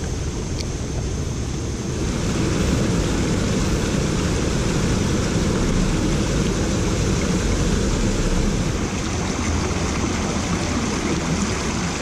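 Mountain stream rushing over rocks and small cascades: a steady wash of water noise that grows louder about two seconds in.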